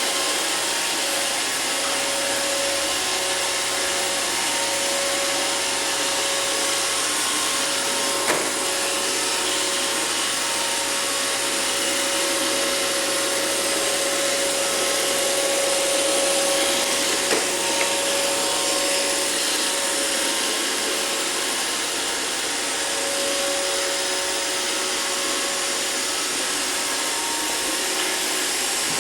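iRobot Roomba robot vacuum running steadily, an even whir with a steady hum. Two brief knocks stand out, one about a third of the way in and another just past halfway.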